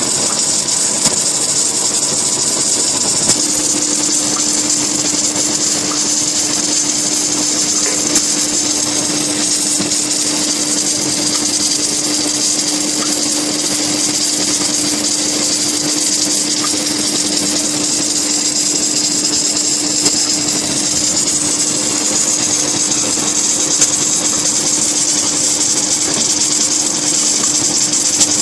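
Steady running noise of an H-beam assembly-welding-straightening machine during submerged arc welding, with a hiss, a steady hum that sets in about three seconds in, and a few faint clicks.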